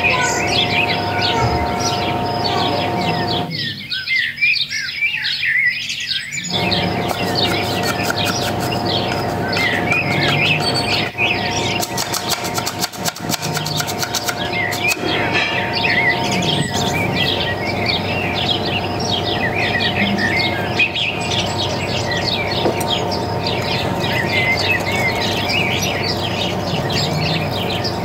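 Many small birds chirping and twittering without a break, over two steady tones, from a bird-song ambience track laid under the footage.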